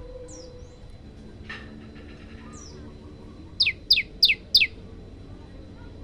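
Caged common tailorbird calling: a few faint high falling calls, then a little past halfway a run of four loud, sharp notes, each sweeping quickly downward, about three a second.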